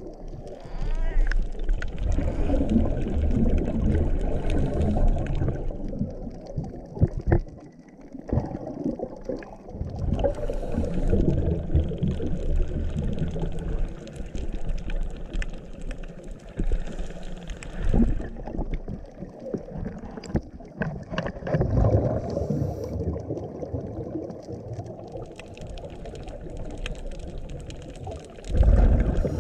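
Scuba diver's regulator breathing heard underwater: long bursts of exhaled bubbles about every five seconds, with low water noise between.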